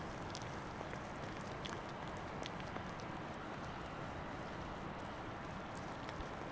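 A fork stirring flour and liquid into batter in an enamel bowl, with scattered light clicks of metal on enamel over a steady background hiss.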